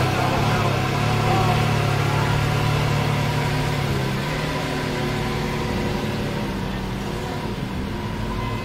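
Lamborghini Veneno's 6.5-litre V12 idling steadily, a little quieter in the second half.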